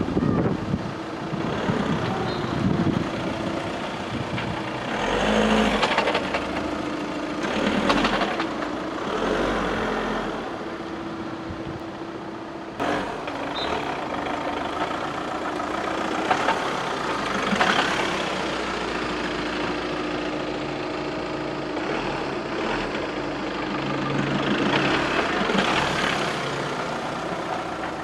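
2014 VW Tiguan running under way, its engine note changing with throttle and shifts, with a few short knocks from the drivetrain. This is the clatter at every load change and gear shift that a new dual-mass flywheel and clutch have not cured.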